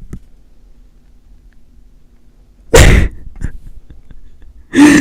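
A man snoring in his sleep: after a quiet stretch, one loud, rough snore about three seconds in, and another loud snore starting near the end.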